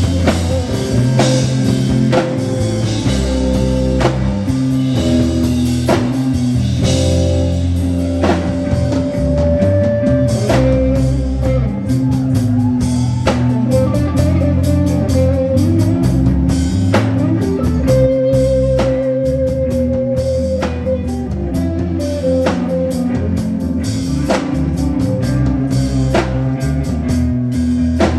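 Instrumental break of a gospel song: a band with electric guitar, bass and drum kit plays a steady groove, with a lead guitar holding sustained, vibrato-laden notes.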